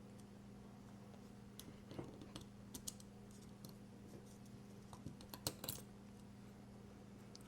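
Faint scattered clicks and light metallic taps of a folding knife being taken apart with a screwdriver. The loudest cluster comes about five and a half seconds in, over a low steady hum.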